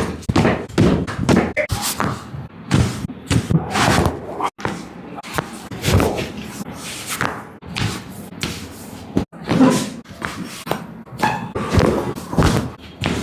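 Rapid run of hard thumps and slaps, several a second, as from hands striking a patient's back and body during a chiropractic treatment.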